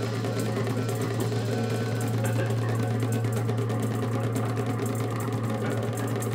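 Electronic background music: a steady low buzzing drone with a fast, even ticking pulse over it.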